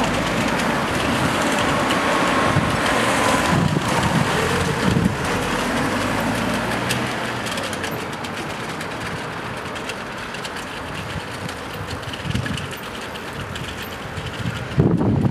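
Steady city street traffic noise as vehicles drive past, easing off a little about halfway through.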